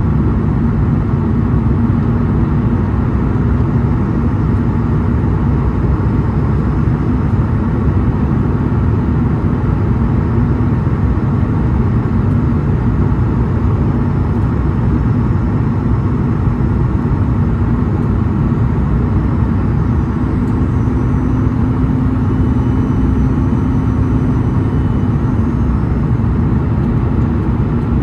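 Steady cabin noise inside a Boeing 737 MAX 8 descending to land: the rush of air past the fuselage and the drone of its CFM LEAP-1B turbofan engines. A low steady hum runs through it, shifting slightly higher for a few seconds near the end.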